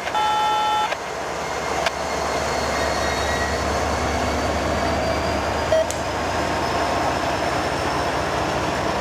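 A work train moving along the track: a steady rumble of diesel locomotives and rolling cars, with a faint high whine slowly rising in pitch. It opens with a brief chord of steady electronic beep tones that stops about a second in.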